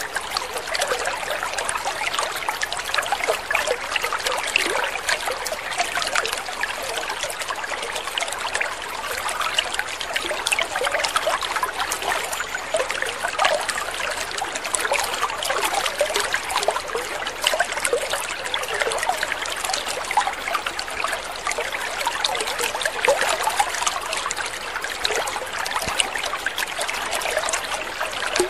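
Water trickling and splashing steadily in a continuous, even babble.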